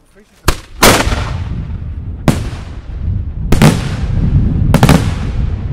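Multi-break Italian 125 mm titanium salute shell bursting in the air: a string of five sharp bangs about a second and a quarter apart, each followed by a rolling echo.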